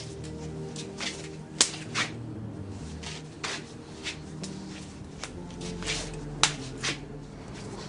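Quick, irregular slaps of hands and forearms meeting in a Wing Chun hand-trapping and striking drill, a dozen or so sharp smacks, two of them much louder than the rest.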